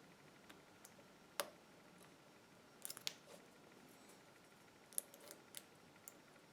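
Faint, scattered clicks of lock-picking tools working in the plug of a small YALE push padlock. The loudest comes about a second and a half in, with quick clusters of clicks near three seconds and again around five seconds.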